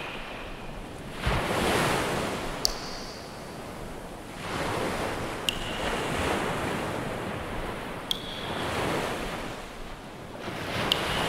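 Ocean surf: waves breaking and washing in as slow swells of rushing noise every few seconds. A sharp click with a brief high ring sounds about every two and a half seconds.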